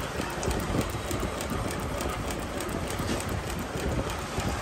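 JACKING JK-4420D double-needle walking-foot industrial sewing machine running steadily, stitching through a thick leather strip with a rapid, even clatter of needle and feed strokes.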